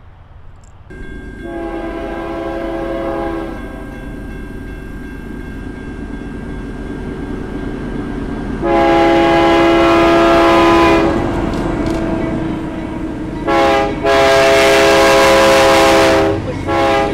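Train horn sounding a series of blasts: a long one, another long one, a short one, then long ones again, getting louder as they go, over a steady low rumble.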